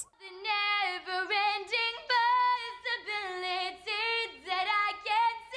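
A young woman's solo voice singing a cappella at full voice, a phrase of held notes broken by short breaths, with no accompaniment.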